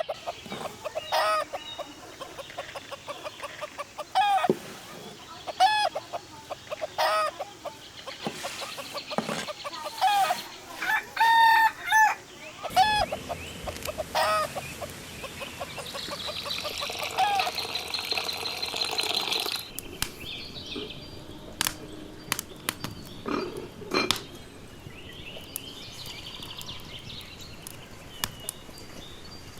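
Domestic chickens calling, short pitched clucks and squawks repeating every second or so through the first half. After that it quietens to a faint high chirring with a few scattered clicks.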